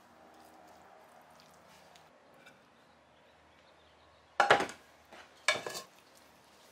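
Two loud clattering knocks about a second apart, a little over four seconds in, each made of a few quick hits, over a faint low hum.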